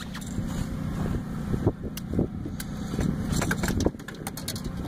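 Knocks, clicks and rattles of fishing gear being handled on a boat floor, over a steady low rumble.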